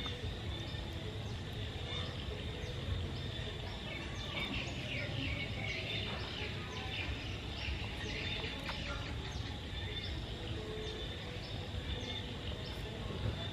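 Birds chirping in quick repeated calls, thickest through the middle, over a steady low background rumble.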